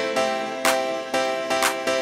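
Instrumental background music with held pitched notes over a steady beat.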